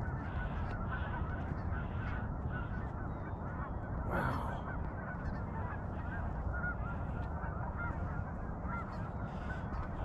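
A large flock of geese honking continuously, many calls overlapping, with one louder call about four seconds in.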